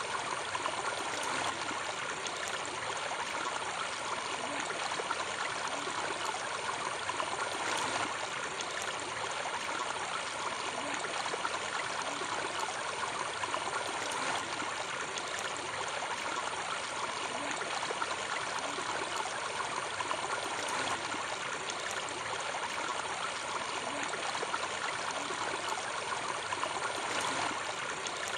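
Steady splashing and churning of pond water as a dense crowd of large fish jostle at the surface for feed.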